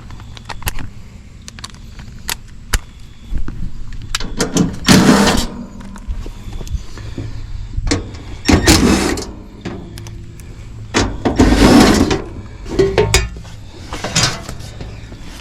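Hands at work clearing around and opening an outdoor heat pump unit: five loud bursts of handling noise, each a second or less, with scattered sharp clicks, over a low steady hum.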